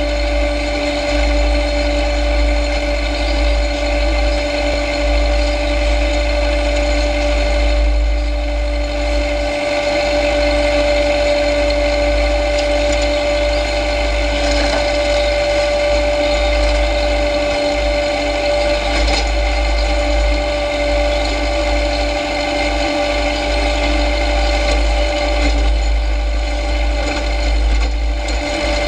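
John Deere tractor running steadily under way, a constant engine drone with a steady whine and a low rumble over a dense mechanical rattle.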